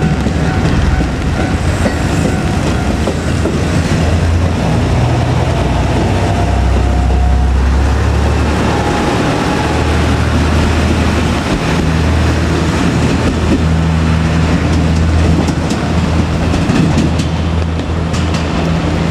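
A JR Kyushu KiHa 200 diesel railcar running past at a level crossing: its diesel engine drones steadily and loudly, and the wheels click over rail joints, most clearly near the end. A level-crossing warning bell rings in the first few seconds and then fades out.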